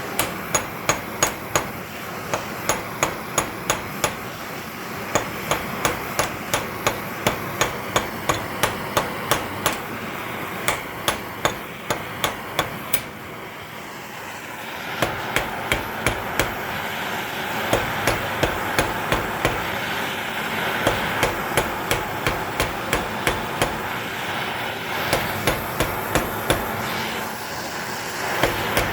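Hand hammer striking metal in a steady run of sharp blows, about two to three a second, with a short pause near the middle: forming a rivet by hammering it. A steady hiss runs under the blows in the second half.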